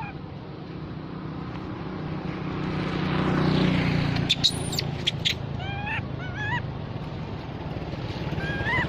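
Short, squealing rise-and-fall cries of a baby monkey, two at about six seconds in and more near the end, with a few sharp high squeaks just before them. Under them runs a steady low engine-like drone that swells and fades about three and a half seconds in.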